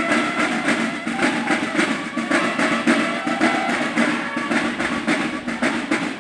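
Banda de guerra drum line playing a fast march cadence on snare drums, many drums striking together in rapid, even strokes.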